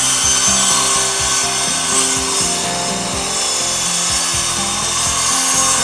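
Handheld electric circular saw cutting through a sheet of plywood, its motor running at full speed under a steady, even load.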